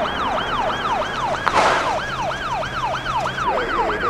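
Emergency vehicle siren in rapid yelp mode, its pitch sweeping over and over, about three sweeps a second. A brief rush of noise cuts in about a second and a half in.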